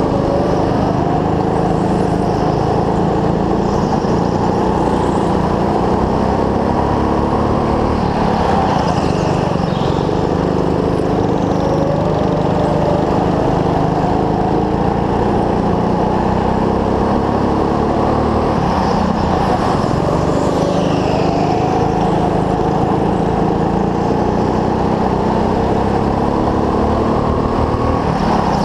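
Racing go-kart's small engine heard from the driver's seat under hard running, its note climbing in pitch as it accelerates and dropping off when the throttle lifts, several times over.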